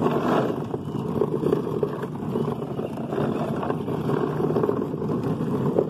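Hard plastic wheels of a toddler's ride-on push car rolling over asphalt: a steady, gritty rumble.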